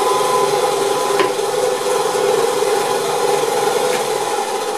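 Homemade 8-inch wooden bandsaw running without cutting: a steady hum of the motor and wheels with the whir of the blade. A faint tick comes about a second in.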